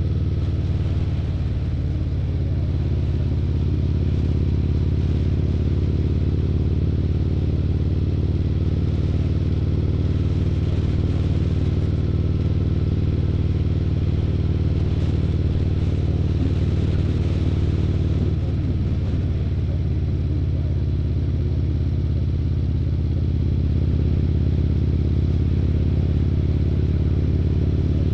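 Harley-Davidson Street Glide's V-twin engine running steadily under way, heard from the moving bike, with a slight drop in level around 18 s.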